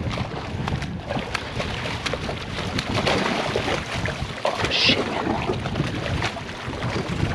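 A hooked trout thrashing and splashing at the water's surface as it is brought to the landing net, over a steady low rumble of wind.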